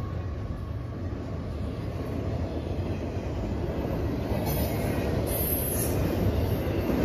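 BNSF double-stack intermodal freight train's well cars rolling past, a steady low rumble of steel wheels on rail that slowly grows louder. Two brief high-pitched wheel squeals come about halfway through.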